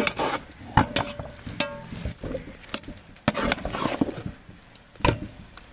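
Metal spatula scraping and knocking against the sides and bottom of a steel pot while mashing and mixing cooked tapioca, with a handful of irregular sharp clinks and soft scrapes between them.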